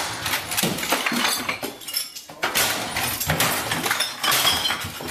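A person smashing household objects: a rapid, irregular run of crashes and clatter of hard things being struck and knocked over.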